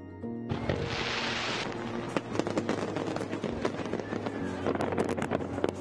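Fireworks going off: a hiss starting about half a second in, then rapid crackling and sharp bangs.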